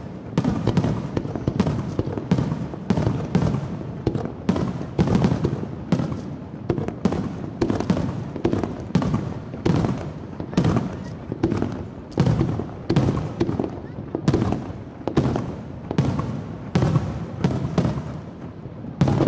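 Aerial fireworks bursting in quick succession, roughly two bangs a second, each with an echoing, rumbling tail.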